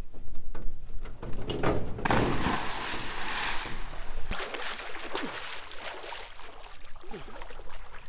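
A person jumping off a pontoon boat deck into a lake: a splash about two seconds in, followed by about two seconds of churning water, then lighter sloshing.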